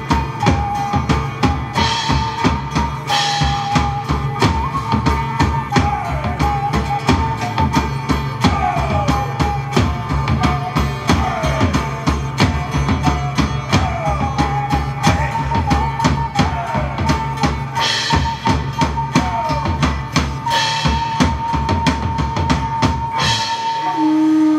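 Live medieval-style folk band playing: a steady drum-kit beat under a high melody held on long notes, over a steady low drone.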